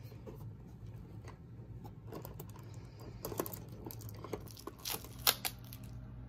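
Cardboard tearing and crinkling as a perforated door on a cardboard advent calendar is pushed open and the small cardboard box behind it is pulled out and opened: an irregular run of sharp crackles and snaps, the loudest about five seconds in.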